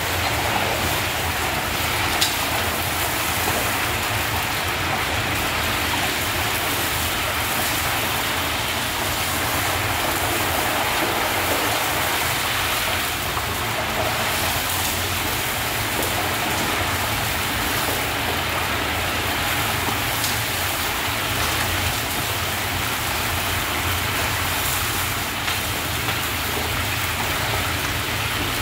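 Meat sizzling steadily in hot oil in a large kazan as it browns for plov, stirred now and then with a long metal skimmer. A low steady hum runs underneath.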